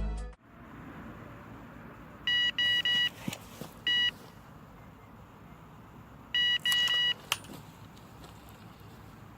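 Electronic bite alarm beeping as a fish pulls on the line: three quick beeps, a single beep about a second later, then another short run of beeps a few seconds after that.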